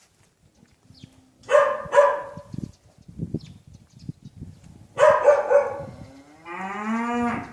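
Animal calls: two short calls about a second and a half in, three more about five seconds in, then a longer call that rises in pitch near the end.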